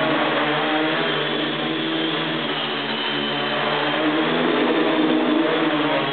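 Custom-built tricopter's three brushless motors and propellers whirring as it hovers and drifts, the pitch wavering as the motors speed up and slow down to hold and move the craft.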